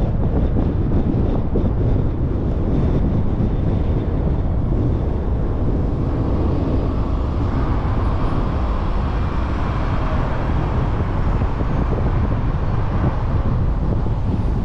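Steady road noise of a car driving: a low rumble of tyres and engine with wind on the microphone. A higher hiss comes in about halfway through.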